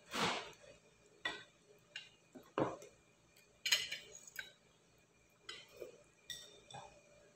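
A slurp of beef broth from a ceramic bowl, followed by a string of light clinks and knocks as the bowl is set down and a fork picks at food on a plate.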